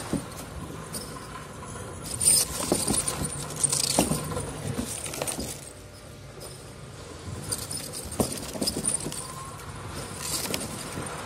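Plastic water bottles and their shrink-wrap film being handled and moved on a wooden board: irregular crinkles, knocks and rustles, busiest about two to five seconds in and again near the end.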